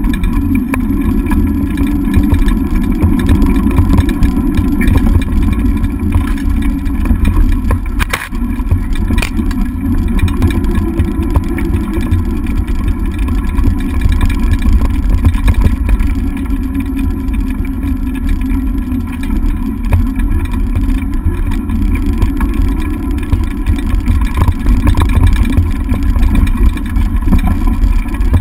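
Steady loud rumble of a dog scooter rolling fast over a rough dirt forest track, carried through the handlebar-mounted camera along with wind on the microphone. A single sharp knock about eight seconds in.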